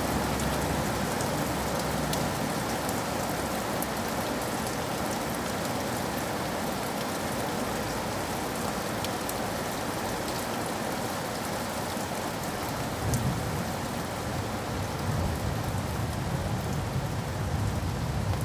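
Heavy rain falling steadily on a window pane, with single drops ticking against the glass. A low rumble comes in about two-thirds of the way through.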